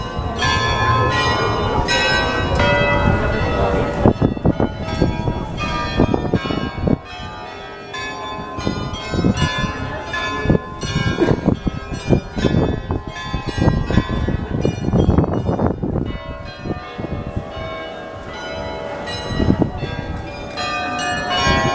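Carillon bells of the Munttoren (Mint Tower) playing a tune: many bell notes struck one after another and left ringing. Under them is the busy noise of the crowded market.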